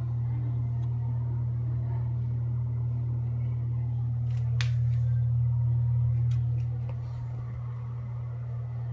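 Akari bathroom exhaust fan running with a steady low motor hum. A sharp click comes about four and a half seconds in, and the hum gets a little quieter around seven seconds.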